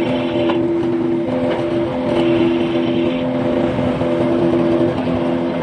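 Forklift engine running steadily, under a repeating pattern of steady tones that switch back and forth in pitch about once a second.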